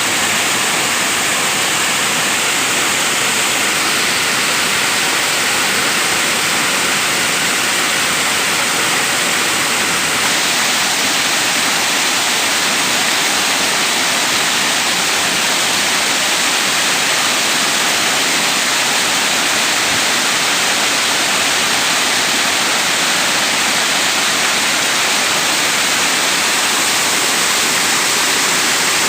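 Waterfall: a steady, unbroken rush of falling water, heavy in the hiss and even throughout.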